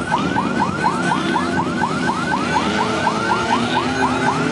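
Electronic siren in a fast yelp, about five rising sweeps a second, over the steady running of engines; the siren cuts off near the end.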